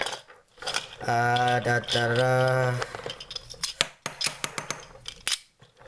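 Snatoms magnetic plastic atom-model balls clicking and clacking as they are handled and snapped together into a methane molecule, a quick run of sharp clicks in the second half. Before the clicks there is a person's long, steady 'uhh'.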